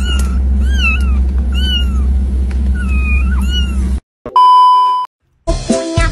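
Many kittens mewing over and across one another in short, high, rising-and-falling cries over a steady low hum. After about four seconds it cuts out to a single steady test-tone beep lasting under a second, and music with a beat starts near the end.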